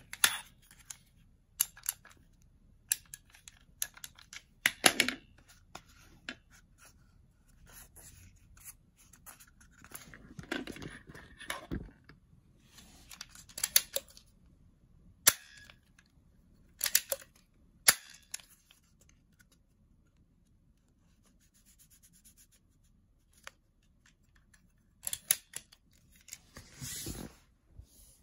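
A plastic toy foam-rocket launcher being handled and loaded: a series of sharp plastic clicks and knocks at irregular intervals, with a few short stretches of scraping and rustling.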